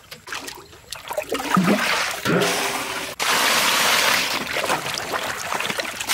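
Water poured from a metal bowl splashing into a metal basin of sweet potatoes. The pour starts suddenly about three seconds in and runs as a steady rush over hands rubbing the potatoes. Before it come a few light knocks and clatters of the bowl being dipped and handled.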